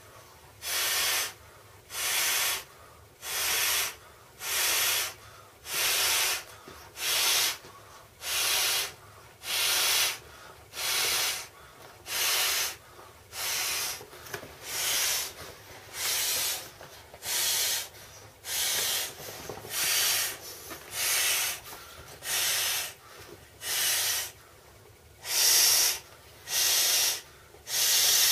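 A swim-ring tube being blown up by mouth: short, hissing puffs of breath into the inflation valve in a steady rhythm of about one a second, with quick breaths in between.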